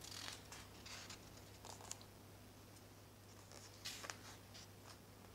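Faint rustling and brushing of paper as the pages of a hardcover picture book are turned by hand, in light scattered strokes near the start and again about four seconds in.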